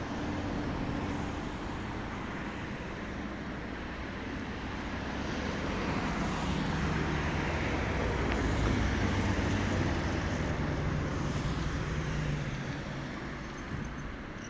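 Road traffic passing close by, with engine and tyre noise. It swells to its loudest in the middle as vehicles go past, then eases near the end.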